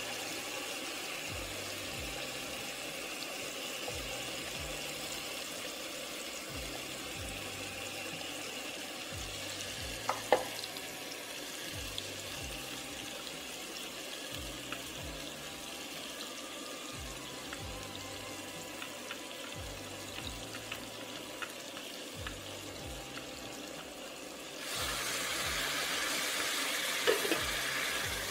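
Bumbu spice paste frying in hot oil in a stainless steel pot: a steady sizzle that gets louder about 25 seconds in as the paste is stirred with a spatula. A knock sounds about ten seconds in and again near the end.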